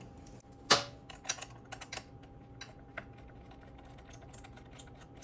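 Light metal clicks and ticks from an 8 mm socket wrench being worked on the bolt that holds the rear-wheel ABS sensor. One sharp click comes about a second in, followed by a string of fainter, irregular ticks.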